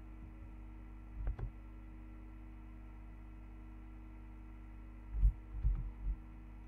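Steady electrical hum, with a few soft low thumps about a second in and again between about five and six seconds in.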